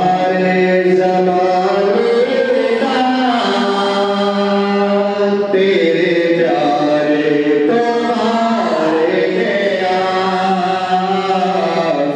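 A man singing a Punjabi naat into a microphone, drawing out long, slowly bending held notes, with a steady low drone beneath. A new phrase begins about halfway through.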